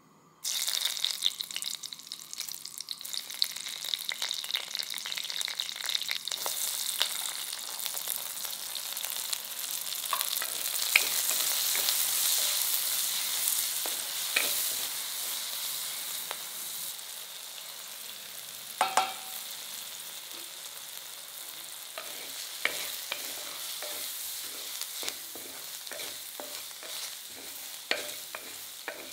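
Shallots, green chillies and curry leaves sizzling in hot oil in a stone kadai, stirred with a spatula that scrapes and taps against the pot. The sizzle starts suddenly about half a second in and is loudest around the middle. Later it quietens and the stirring strokes stand out, with one sharper knock about two-thirds through.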